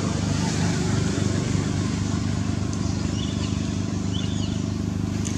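A motor engine running steadily, a low even drone, with two short faint high chirps about three and four seconds in.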